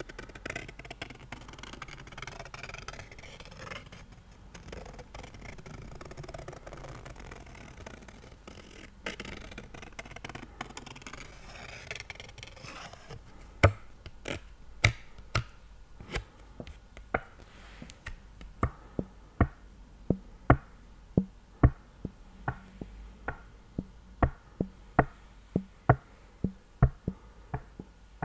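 Fingernails scratching and rubbing over a small picture card held close to the microphone, a soft steady rustle. About halfway through this gives way to sharp taps on the card, one or two a second, falling into a fairly even rhythm.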